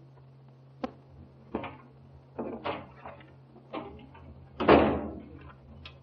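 A wooden door opening and shutting: a sharp latch click about a second in, then a series of knocks and scuffs, the loudest near the end as it shuts. A steady low hum runs underneath.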